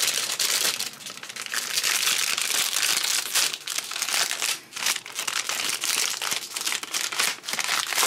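Metallised anti-static bag being crinkled and rustled as a hard drive is unwrapped from it, a dense crackling with brief lulls about a second in and again near the middle.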